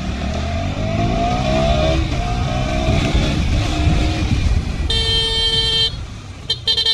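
KTM 200 Duke's single-cylinder engine running on the move, its pitch rising over the first few seconds. About five seconds in a horn sounds for about a second, then gives a few short beeps near the end.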